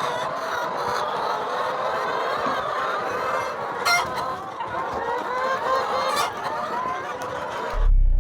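A flock of chickens clucking and chattering, many birds calling over one another, with a few sharp clicks among them.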